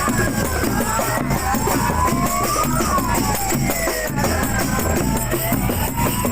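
Loud procession music with drums and a steady beat, over which a wailing tone slowly rises and falls back, over and over.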